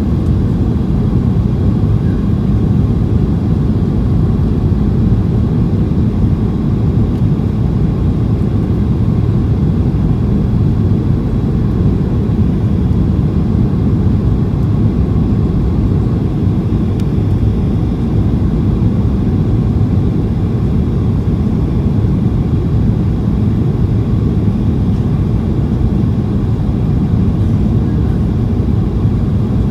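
Steady low rumble inside the cabin of a Boeing 737-800, its two CFM56-7B engines and the airflow heard from a seat over the right wing.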